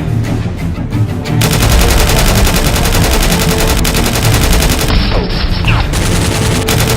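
Rapid automatic gunfire sound effect over background music, patchy at first, then a dense unbroken stream of shots from about a second and a half in.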